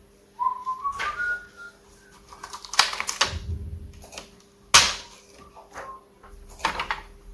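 Sharp clicks and taps of test probes and handling on a laptop motherboard, irregular, with the loudest click just before the five-second mark. A short rising whistle-like tone comes about half a second in, over a faint steady hum.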